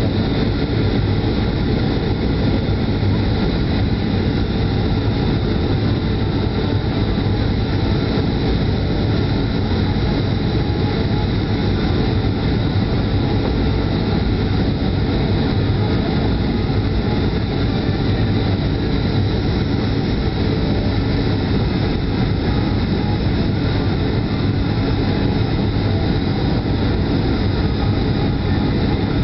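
Steady cabin noise of a Boeing 737-800 in descent on approach to landing, heard inside the cabin by the wing: the rush of air and the even drone of its CFM56-7B turbofan engines, with a low hum and a few faint steady tones.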